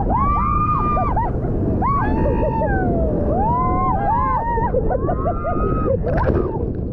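Several women shrieking and laughing while wading into breaking surf: long high squeals that rise and fall, with bursts of laughter between them, over the steady rush of waves and wind on the microphone.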